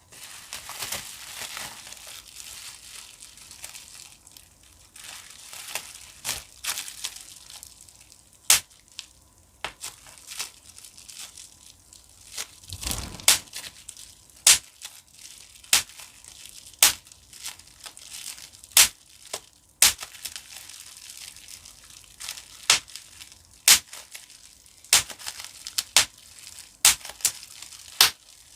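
Plastic bubble wrap being handled and crinkled, then individual bubbles squeezed and popped one at a time. After about eight seconds the sound turns into a run of sharp pops, roughly one a second.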